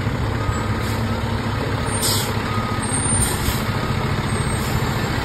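Heavy rescue fire truck's diesel engine running as it backs up, its reverse alarm beeping about once a second. Two short hisses of air from the brakes about two and three seconds in.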